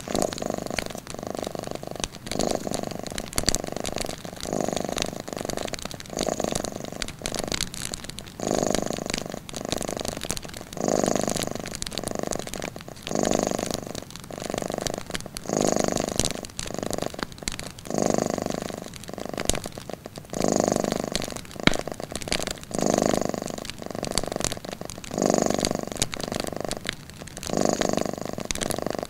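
Domestic cat purring steadily, the purr swelling and fading with each breath, with a stronger pulse about every two seconds. Light clicks of a crackling wood fire run through it.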